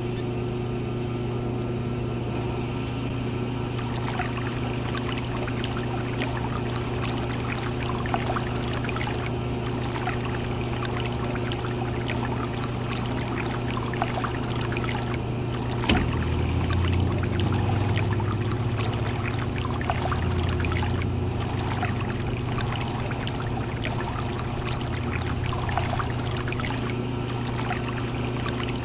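A small electric motor runs with a steady hum while liquid trickles and pours. There is a click about sixteen seconds in, after which a lower hum joins for a few seconds.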